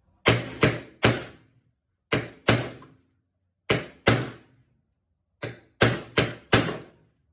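Hammer striking a metal punch to drive out a rust-seized bolt: eleven hard metallic blows in quick groups of three, two, two and four, each ringing briefly. The bolt is barely moving.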